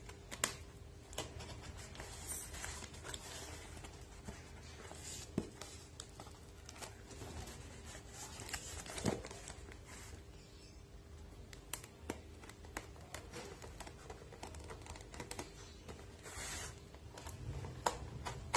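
A razor blade cutting and scraping along brown packing tape on a cardboard parcel, with scattered small clicks, scratches and short crinkles of the tape.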